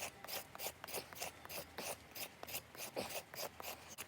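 Broc Tracker knife's front edge scraping a wooden pot hook, quick repeated strokes at about three to four a second, cleaning the surface off.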